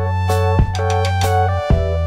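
Instrumental background music: sustained bass and keyboard-like chords over regular drum hits.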